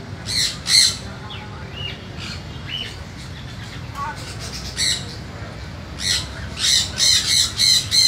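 Parrots squawking in short, harsh calls: two early on, one about five seconds in, then a quick run of squawks from about six seconds on.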